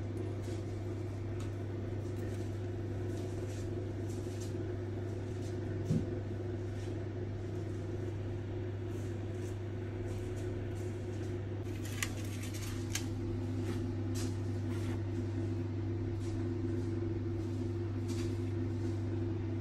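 Steady low machine hum, with scattered light clicks and a single knock about six seconds in.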